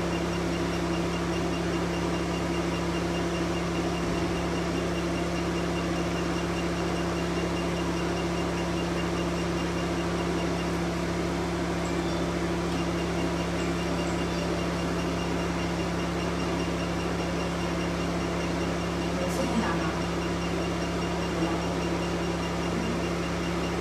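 Steady machine hum from a diode laser hair-removal unit's running cooling system, with a faint fast high-pitched pulsing under it as the handpiece works over the skin.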